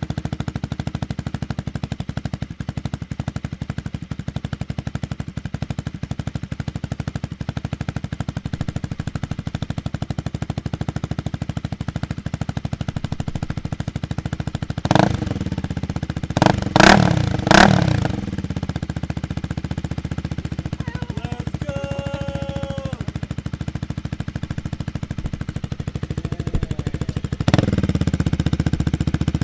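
Honda Rebel 300's single-cylinder engine idling steadily through a Coffman's Thunder aftermarket exhaust, just after its first start on the new pipe. Three short throttle blips come about fifteen to eighteen seconds in, and the idle rises slightly near the end.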